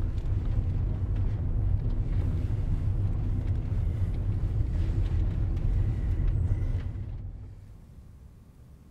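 Steady low rumble of a car's engine and road noise heard from inside the cabin, falling away about seven seconds in to a faint low hum.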